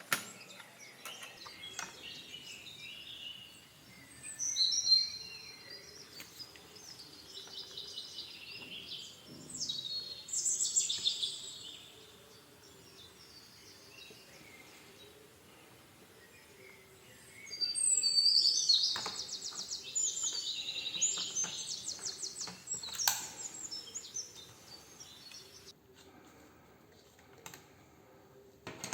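Birds singing in the background in several bouts of high chirps and trills, the longest about two-thirds of the way in, with a few faint clicks.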